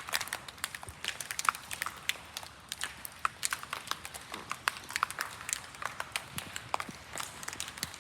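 Irregular, fast patter of water drops striking a hard surface, several taps a second over a faint hiss: rainwater leaking through the gymnasium roof during a typhoon.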